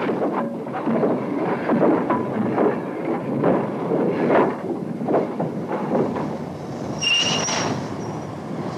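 Small Peckett 0-4-0 saddle-tank steam locomotive working slowly through the yard, with irregular exhaust beats and clanking of wagons and running gear. A brief high-pitched squeal about seven seconds in.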